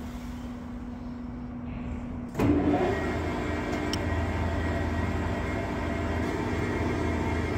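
Hafco TM-26120G centre lathe running, its motor and gearbox humming steadily as it turns a heavy cylinder barrel. About two seconds in, the hum steps up suddenly and louder.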